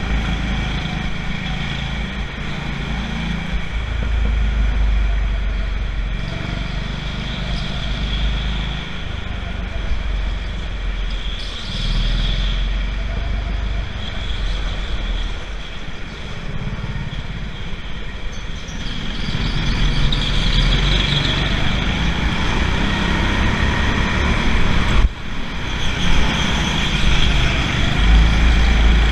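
Go-kart lapping an indoor track, heard from onboard: its drive note rises and falls through the corners over a heavy low rumble, with a brief drop about 25 seconds in.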